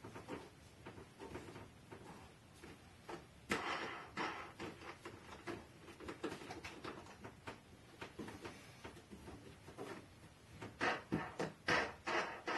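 A thin formed PETG plastic sheet being handled in its wooden clamping frame: scattered clicks and knocks, with bursts of rustling plastic about three and a half seconds in and again, louder, near the end.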